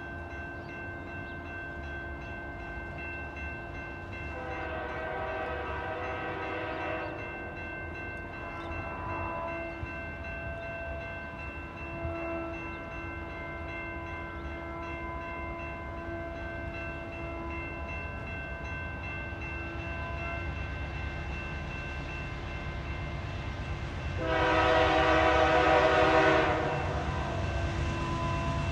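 Distant CN freight locomotive's air horn sounding as the train approaches. There is a long blast about four seconds in, shorter fainter blasts around nine and twelve seconds, and a louder long blast near the end, over a low rumble.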